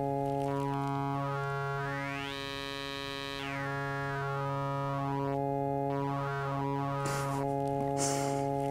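Rosci digital oscillator holding a steady low droning note while its formants control is turned. The strong overtones sweep up and back down, giving a vowel-like shift in tone. Two short bursts of hiss come near the end.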